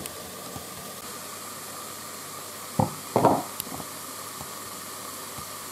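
Mushrooms sizzling on the sauté setting in an Aroma digital multicooker's inner pot, a steady hiss. About three seconds in there is a sharp knock and a short clatter.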